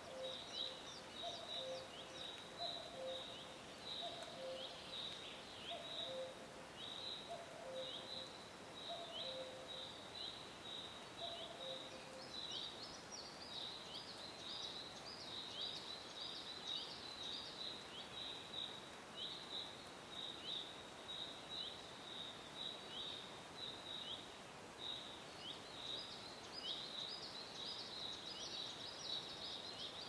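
Forest birdsong: small birds chirping steadily in short high chirps, several a second. A lower two-note call repeats about once a second and stops about twelve seconds in.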